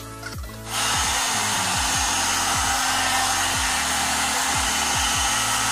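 Hot air brush (one-step hair dryer brush) switching on about a second in, then running with a steady rush of blown air over a low motor hum.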